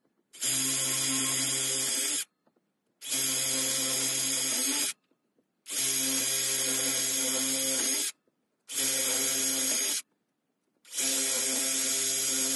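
Cordless drill boring holes into a small block of timber in five separate runs of about two seconds each. Each run holds a steady motor pitch, with brief silences in between as the bit moves to the next hole.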